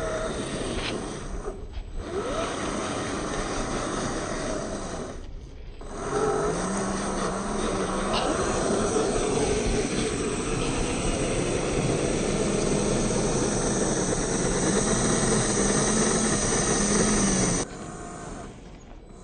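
Brushed electric motor and gear drivetrain of a 1/10-scale RC crawler running under throttle, with a low whine that wavers up and down over a rough, noisy ground sound. The sound drops out briefly twice early on, then runs louder until it falls away near the end.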